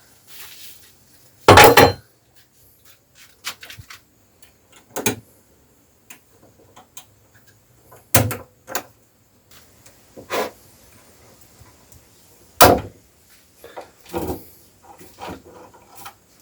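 A series of separate knocks and clunks a couple of seconds apart, with faint rustling between: clamps and other fastenings being handled on a glued-up pallet-wood countertop.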